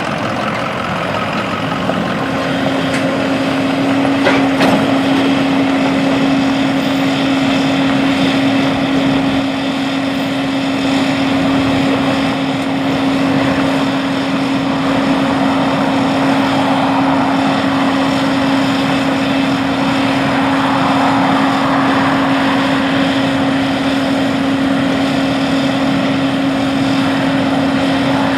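Diesel engines of a combine harvester and other farm machinery travelling along a road, running steadily with a strong even hum that sets in a couple of seconds in.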